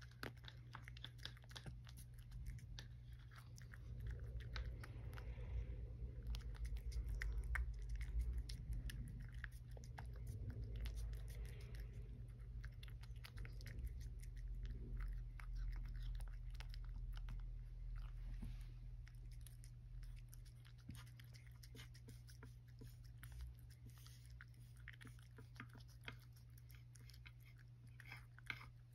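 Cat eating from a ceramic dish: many small, quick chewing clicks and crunches. A low rumble swells for several seconds in the middle.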